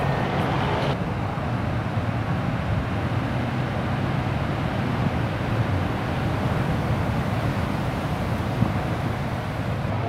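Steady outdoor rumble of big ocean surf and wind, with a low hum underneath.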